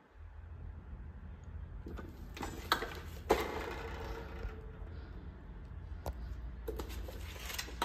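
Handling noise of a plastic bill acceptor being turned over and moved: a few light clicks and knocks over a low steady hum.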